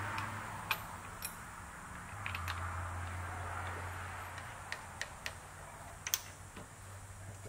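Light metallic clicks and taps as an aluminium workpiece is handled and set into the jaws of a machine vise, several in quick succession near the end, over a steady low hum.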